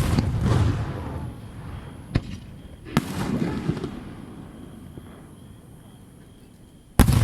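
Aerial firework shells bursting overhead: sharp booms, each followed by a rolling rumble that dies away over a couple of seconds. One boom comes just as it begins, a smaller crack about two seconds in, another boom about three seconds in, and a loud one near the end.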